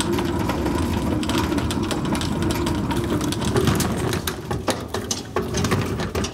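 Wheeled hospital stretcher rolling along a corridor, its frame and castors rattling with dense irregular clicks over a low hum.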